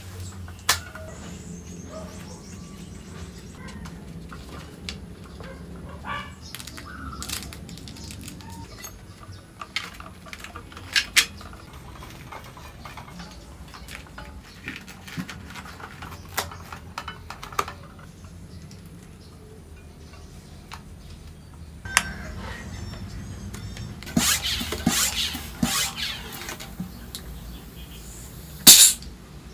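Bicycle wheel being worked on by hand: scattered small clicks, taps and rubbing as rim tape and a tyre go onto the rim, over a steady low hum. Near the end a floor pump's head is pushed onto a Presta valve, with one short loud burst of noise.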